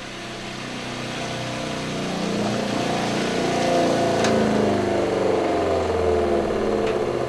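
SHURFLO Revolution 12-volt diaphragm water pump running, pushing water from the tank into new PEX lines and building pressure before its pressure switch cuts it off; its steady hum grows louder over the first few seconds. A couple of faint clicks sound partway through.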